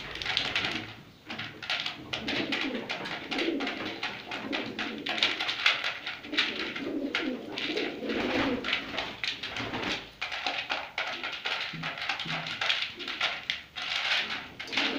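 Domestic pigeons cooing in repeated low phrases while the flock pecks at corn kernels in a feed dish, with many quick clicks of beaks on grain.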